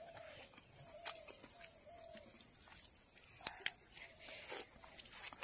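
Quiet outdoor field ambience: an animal calling faintly in a quick series of short falling notes over the first couple of seconds, over a steady thin high hum, with a few sharp clicks in the middle.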